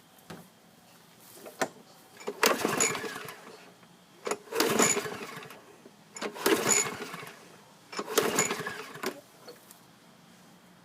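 Four recoil pull-starts of a Troy-Bilt push mower's 6.5 hp Briggs & Stratton engine, each pull turning the engine over for about a second without it catching. It will not start on prime alone, a sign that the carburetor needs cleaning.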